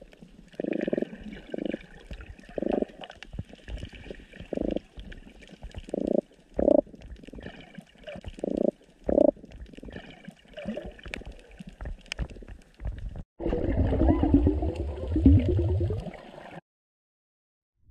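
Muffled underwater gurgling and bubbling picked up by a camera in its waterproof housing: short irregular pulses with a faint hiss between them. About two thirds of the way through it becomes a louder continuous rumbling churn for about three seconds, then cuts off abruptly.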